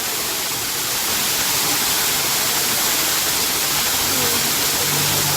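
Waterfall running steadily: a constant rush of falling water.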